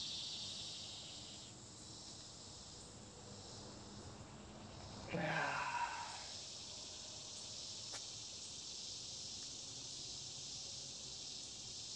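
Steady background hiss, broken about five seconds in by a man's short grunt of effort that falls in pitch.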